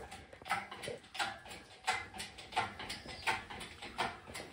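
Engine hoist being worked, a regular mechanical stroke about every 0.7 seconds.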